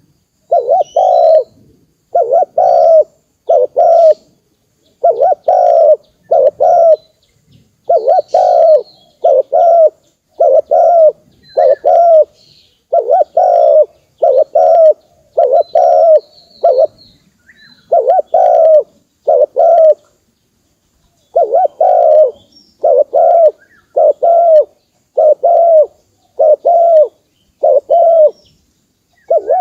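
Spotted dove cooing over and over, short low coos in close pairs and threes about once a second, with brief pauses: the call used as a lure for wild doves. Faint high chirps of small birds are heard behind it.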